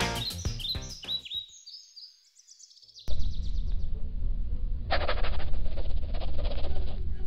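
Cartoon music fading out with a run of high chirping notes, then a short silence. A low steady hum follows, and about five seconds in a pencil scratches on paper for about two seconds, writing out an answer.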